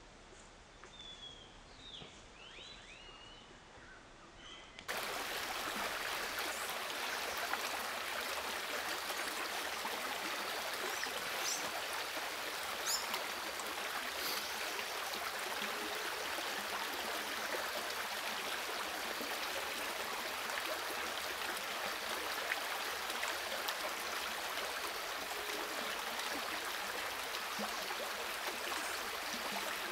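Faint bird calls with short gliding notes. About five seconds in, an abrupt change to a louder, steady rushing like a flowing stream, with a few faint chirps over it.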